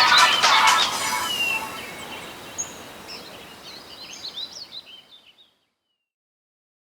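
The tail of a sound track fading out over about five seconds, with short high chirps in the fade, then dead silence from about five and a half seconds in.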